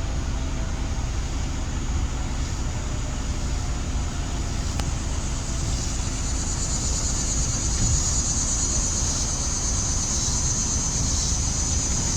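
Steady low vehicle rumble with an even background hiss; a high, steady hiss grows louder about halfway through.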